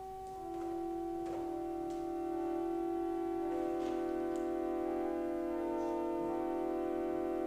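Closing music at the end of a church service: slow sustained chords, notes held steady and new ones added over them, growing a little louder in the first two seconds.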